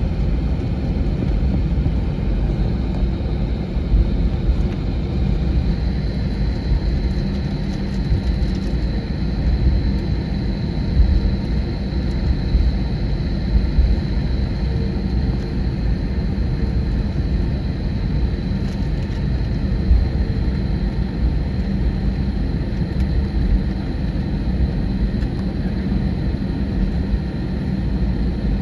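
Airbus A321 airliner heard from inside the passenger cabin: a steady low rumble of engines and airflow, with a faint high whine that comes in about six seconds in.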